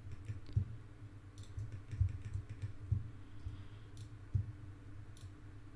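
Faint, scattered clicks of a computer mouse and keyboard, a few irregular clicks a second, over a low steady hum.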